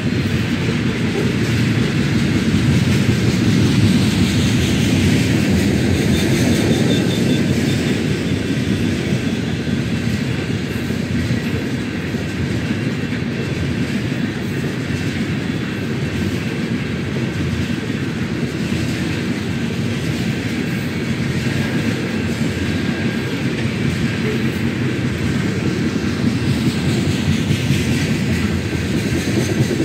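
Freight train of tank cars rolling past: a steady rumble of steel wheels on rail, with wheels clicking over the rail joints. A faint high wheel squeal comes in about six seconds in.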